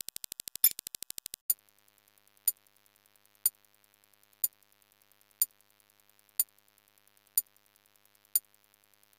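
Electronic clicking sound effect. A fast run of soft ticks with a louder click about every three-quarters of a second stops after about a second and a half, and is followed by single sharp clicks, one a second, like a clock ticking.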